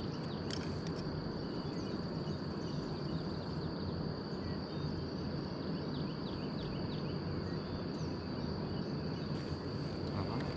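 Steady outdoor ambience: insects droning on one constant high pitch over a steady, even rushing noise, with faint scattered bird chirps.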